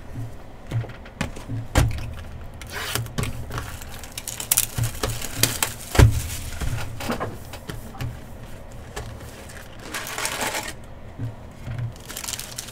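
Foil trading-card packs and their torn wrappers being handled and crinkled, with scattered clicks and taps of packs and cards against the table and one louder knock about six seconds in.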